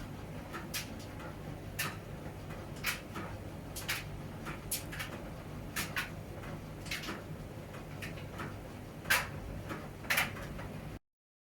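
Miele W1 front-loading washing machine running its wash, a steady low hum with a sharp knock or click about once a second. The sound cuts off abruptly near the end.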